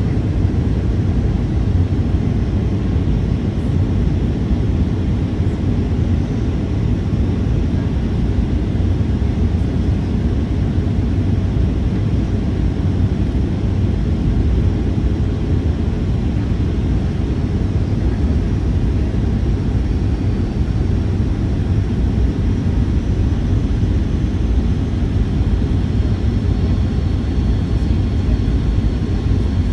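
Steady low rumble of cabin noise inside a Boeing 737-800: airflow and the CFM56-7B engines, unchanging throughout.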